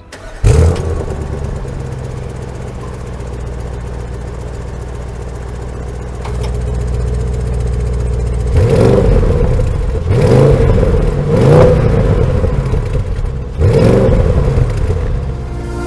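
2020 Audi S8's twin-turbo 4.0-litre V8 starting with a loud flare and settling to a steady idle. In the second half it is revved about four times, each rev rising and falling back.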